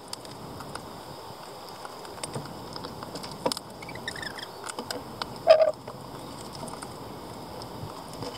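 Rainbow lorikeets feeding at a wooden seed tray: scattered light clicks and taps of beaks and feet on seeds and wood. A few short chirps come about four seconds in, and a louder short knock comes about five and a half seconds in.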